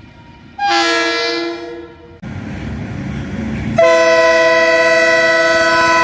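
KiwiRail train horns: a horn chord sounds about half a second in and fades away, then after an abrupt change to the low rumble of a train, a second, louder horn chord starts near four seconds and is held as one long blast.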